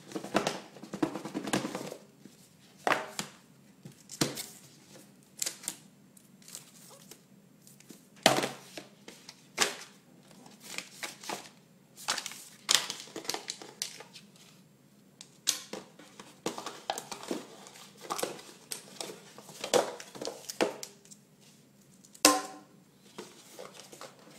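iPad packaging being handled and unwrapped: wrapping crinkling and tearing, with scattered knocks from the box. Near the end there is one brief pitched sound.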